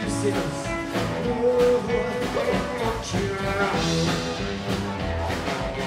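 Live rockabilly band playing: a man singing over acoustic guitar, upright bass and drums, with a steady beat.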